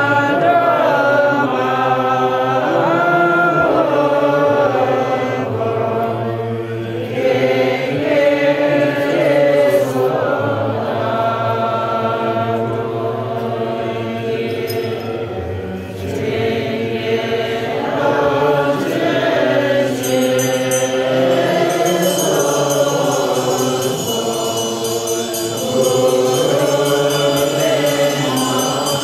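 A group of men and women chanting Tibetan Buddhist prayers in unison, a continuous melodic recitation with held notes stepping up and down.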